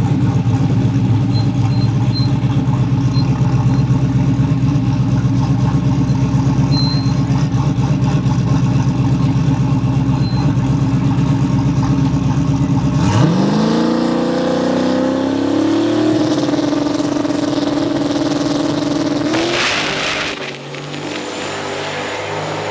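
Drag car engine running with a steady low drone, then revving up about thirteen seconds in, rising in pitch and holding high for a few seconds. Near twenty seconds there is a brief rush of hiss, after which the engine sound drops lower and quieter.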